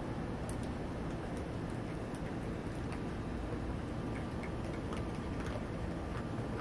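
Raccoon kits eating dry kibble from a metal pan: scattered small crunches and clicks over a steady low background hum.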